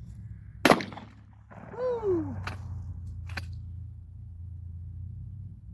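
A shotgun fires bird shot: one sharp, loud shot about a second in, then a short sound falling in pitch and a couple of faint clicks, with another shot right at the end.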